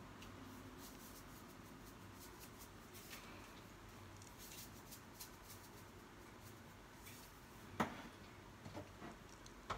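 Faint clicks and light taps of kitchen containers and utensils being handled while sauce is seasoned, with one sharper knock about eight seconds in.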